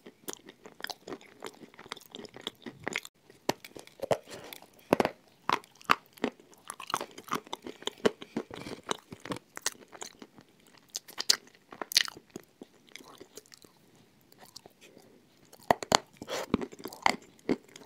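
Close-miked crunching and chewing of dry edible clay: irregular sharp crunches and crackles as the chunks are bitten and ground between the teeth, with a burst of loud crunches near the end as a fresh piece is bitten into.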